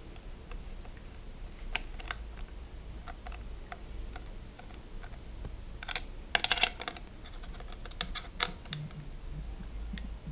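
Scattered small clicks and taps of hand tools on metal as a bracket nut is tightened with a nut driver while a hex key holds the bolt, with a tight cluster of clicks past the middle. A faint steady low hum runs underneath.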